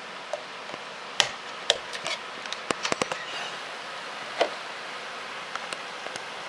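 Sharp plastic clicks and snaps as the clip-on back cover of a Samsung Galaxy S Relay 4G phone is pried off by hand. The clicks come in a quick cluster from about one to three seconds in, with one more click a little later, over a steady low hiss.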